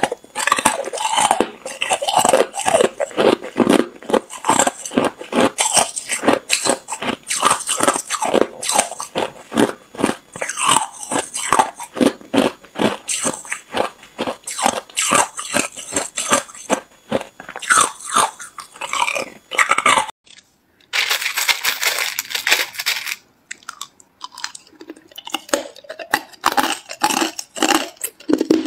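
Hard clear ice cubes being bitten and crunched between the teeth close to the microphone, several sharp cracks a second. About two-thirds of the way through the crunching breaks off for a moment, then goes on hissier and sparser.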